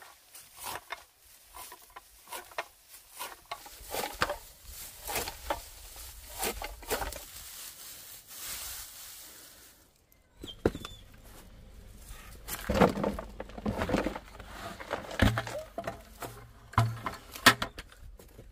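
Dry straw being chopped with a hand blade on a wooden board: a run of irregular chops and rustles. About ten seconds in the sound changes to louder, sharper knocks and scrapes.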